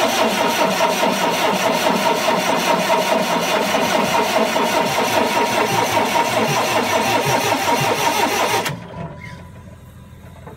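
Large diesel generator engine running through a short open exhaust stack during a cold start, a loud, fast, rough rattling drone. It cuts off abruptly about nine seconds in, leaving a much quieter background.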